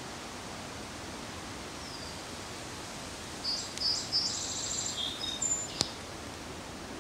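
A songbird sings one short song, starting about halfway through: a few high notes, a rapid trill, then lower notes, over a steady background hiss. A single sharp click comes just after the song ends.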